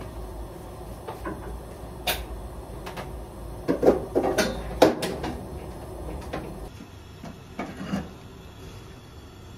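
Kitchen clatter: separate knocks and bumps of things being handled, with a loud cluster of knocks about four to five seconds in and a couple more near the end.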